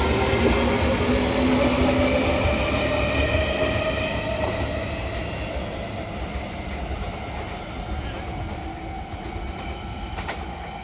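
Sotetsu 8000 series electric commuter train running past on the rails, its rumble fading as it moves away.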